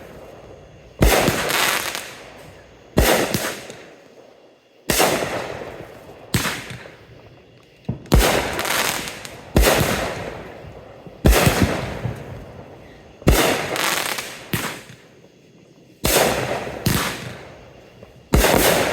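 Fireworks going off in a steady string of about fifteen sharp, loud bangs, one every second or two. Each bang trails off over about a second, and a few come in close pairs.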